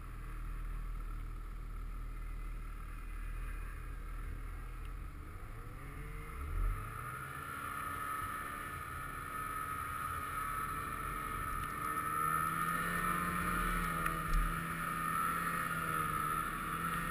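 Snowmobile engines running, the pitch rising about five to seven seconds in as the sled picks up speed, then holding with a steady high whine over the engine. Two brief thumps stand out, one near the pitch rise and one later.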